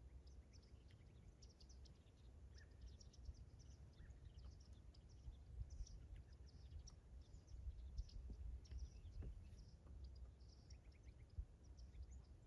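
Faint field ambience: many small birds chirping, scattered short high notes throughout, over a constant low rumble.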